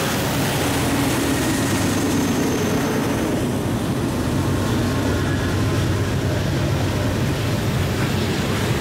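Freight train passing close by: the diesel-electric locomotives' engines drone steadily as the units go by, followed by covered hopper cars rolling past on the rails.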